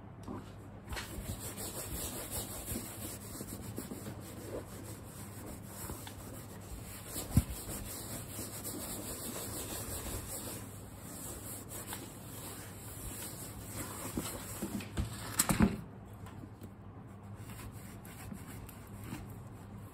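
A wipe rubbed back and forth over a pebble-grain leather handbag, working in leather conditioner: a steady scratchy rubbing. Two sharp knocks from handling the bag come through, the louder one about three-quarters of the way through. The rubbing stops soon after that.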